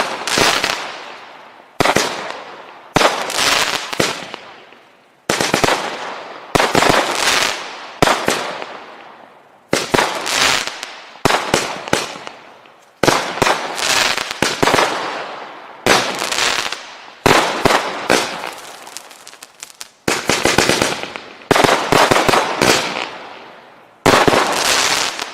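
Rampage multi-shot firework going off shot after shot, about every one to two seconds. Each shot is a sharp bang followed by a crackle that fades away.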